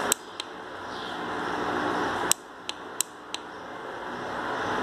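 Sharp plastic clicks from a portable blender's power button being pressed, a loud click near the start and another a little past halfway, each followed by a few lighter clicks, over a steady hiss. No motor starts: the blender is dead and only lights up.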